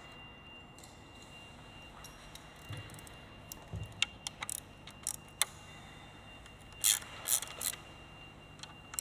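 Scattered light metallic clicks and clinks of hand tools and metal parts being handled at an engine, with a denser run of sharper clinks about seven seconds in.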